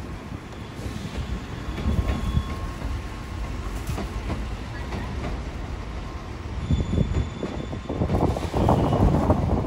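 Electric trains running on the tracks: a low rumble with wheels clicking over rail joints and a faint steady whine. It grows louder in the last couple of seconds as a red Meitetsu train draws near.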